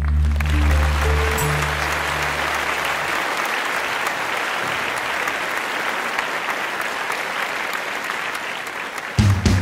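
Steady applause-like clapping noise over background music, whose low notes fade out about three seconds in; music with drums comes back in near the end.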